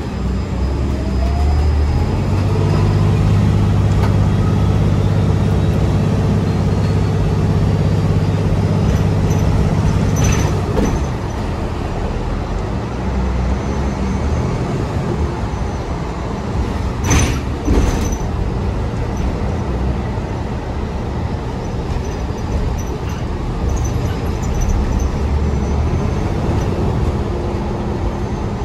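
Cabin ride noise of a New Flyer Xcelsior XDE60 hybrid articulated bus under way. The Cummins L9 six-cylinder diesel hums steadily, a whine from the hybrid electric drive rises in pitch in the first few seconds as the bus accelerates, and the engine note falls away about ten seconds in, leaving tyre and road noise. Two sharp knocks come close together about two-thirds of the way through.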